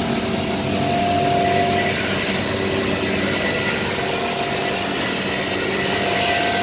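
CNC router at work, its spindle and bit cutting into a melamine board: a steady whine over the hiss of the cut.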